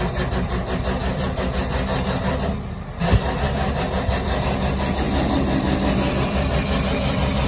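Volvo EW205D wheeled excavator's diesel engine running steadily as the machine is loaded onto a truck bed, with a fast even clatter over the first couple of seconds and a single sharp knock about three seconds in.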